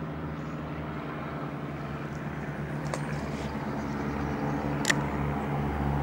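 Steady low drone of a distant motor vehicle engine, growing a little louder toward the end, with one sharp click about five seconds in.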